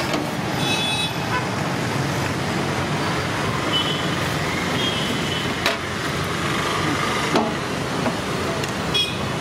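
Steady roadside traffic noise, with short vehicle horn toots about half a second in and again near the end. Two sharp clicks come in the middle.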